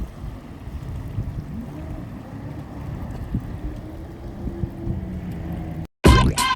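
Motorboat engine running as a steady low drone, its pitch drifting slightly upward partway through. Near the end a sudden cut brings a short, louder burst of a different sound.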